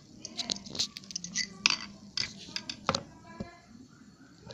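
Handling noises: a dozen or so irregular sharp clicks and light clinks of plastic and metal being picked up and set down, with no blower running.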